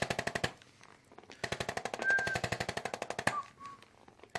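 Handheld chiropractic adjusting instrument firing rapid percussive taps, about a dozen a second, into the lower back and hip muscles. It runs in two bursts: a short one at the start and a longer one of about two seconds from a second and a half in.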